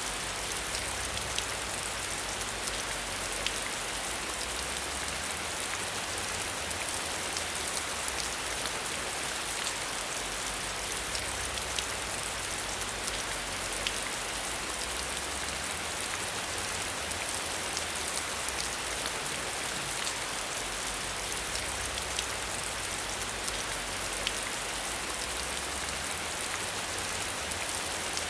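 Steady rain falling, an even hiss with scattered sharper drop ticks and a low rumble underneath.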